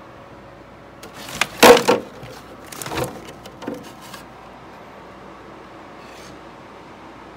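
Crumpled brown packing paper rustling and crackling as a white plastic storage box is pulled out of it. The loudest burst comes about one and a half seconds in, with shorter rustles near three and four seconds, then only a faint steady room hum.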